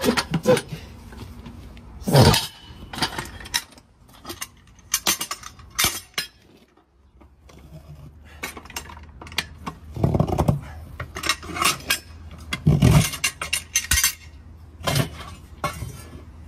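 Steel tools and a truck wheel's steel retaining ring clanking and scraping as the ring is pried off the rim with a manual tire-changer bar. The knocks and clinks come irregularly, with a few louder bangs.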